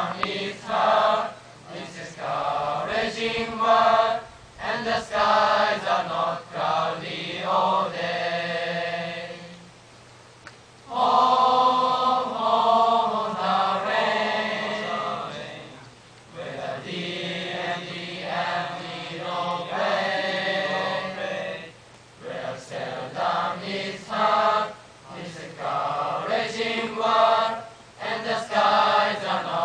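A choir of about 35 boys singing together without instruments, in long sung phrases separated by a few short breaths.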